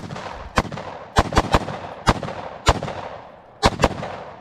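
AR-15 rifle firing about nine fast semi-automatic shots in uneven groups, several in quick doubles and a triple, each trailing off in an echo.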